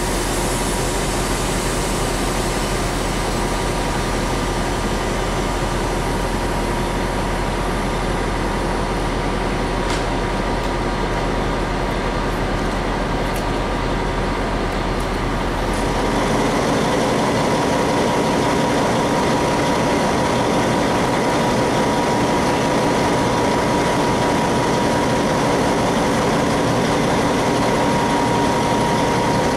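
ČD class 754 'Brejlovec' diesel locomotive's six-cylinder ČKD engine idling steadily while standing at the head of a passenger train, with a steady high whine over a low hum; it grows a little louder about halfway through.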